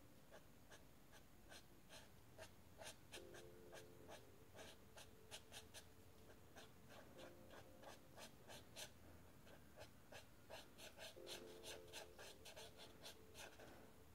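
Felt-tip marker stroking on sketchbook paper: faint, quick short strokes, several a second in irregular runs.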